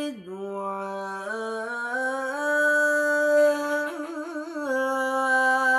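A solo voice reciting the Quran in melodic tilawah style, holding one long drawn-out note. The note steps up in pitch twice, then warbles briefly in a quick ornament about four seconds in before settling on a steady tone.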